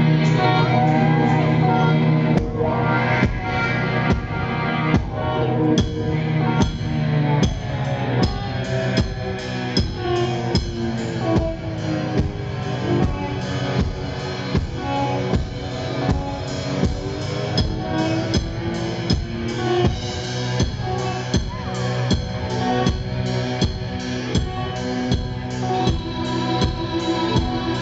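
Live rock band playing a song's opening. A sustained droning chord gives way about two seconds in to a steady drumbeat, with keyboard and other held instrumental notes over it.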